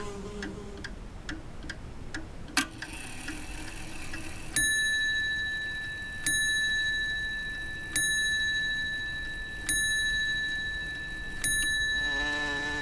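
A clock ticking steadily, then a sharp click, then striking five times, about a second and three quarters apart, each strike a single clear ringing tone that slowly dies away.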